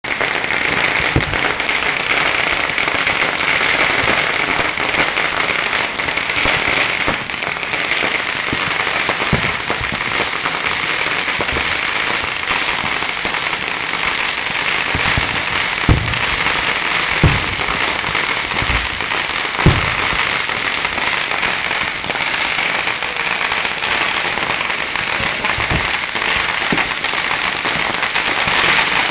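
Fireworks going off all around: a dense, unbroken crackle of many firecrackers, with several deeper booms of aerial shells.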